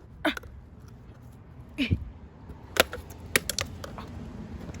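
A few short, light clicks and knocks, the sharpest about three to three and a half seconds in, over a low steady background, as of small objects being handled.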